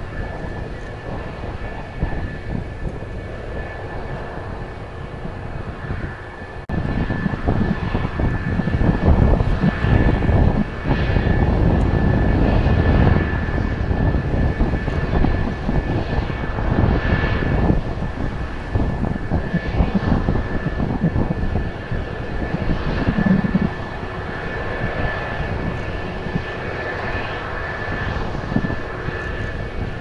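F-4EJ Kai Phantom's J79 turbojet engines running at ground idle: a steady low rumble under a steady high whine. The rumble grows louder about seven seconds in.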